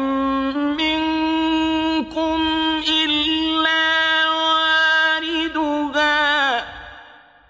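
A male reciter chanting a verse of the Qur'an in Arabic in melodic tajwid style: one long drawn-out phrase of held notes with ornamented turns, trailing off in reverberation near the end.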